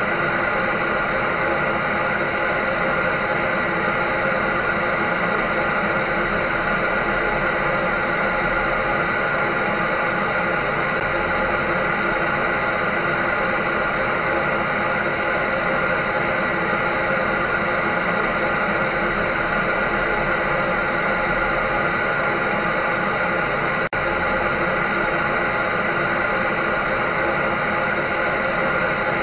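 Clothes dryer running: a steady, unbroken whooshing whir with a constant hum, used as white noise to lull a baby to sleep.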